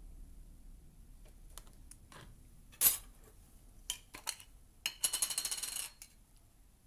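Metal spoon clinking against a container while ingredients are spooned out: scattered light taps, one louder clink about three seconds in, then a quick rattling clatter lasting about a second near the end.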